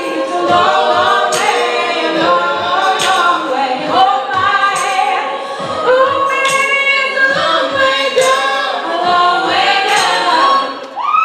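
A cappella group singing a song in several-part harmony, with a steady beat.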